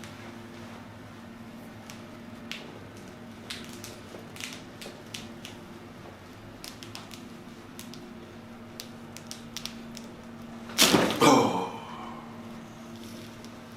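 Y-strap spinal decompression: scattered soft clicks and strap handling over a low steady hum, then, about eleven seconds in, a sudden loud burst of cracking lasting about a second as the strap is pulled and the spine releases.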